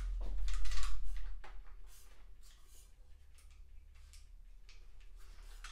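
Handling noise from an airsoft rifle being lifted and turned in the hands: a burst of rustles and light clicks in the first second and a half, then only faint occasional ticks.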